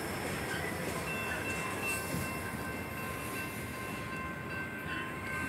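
Union Pacific freight train's last tank cars rolling away along the rails, a steady rumble of wheels on track. Thin steady high tones come in about a second in.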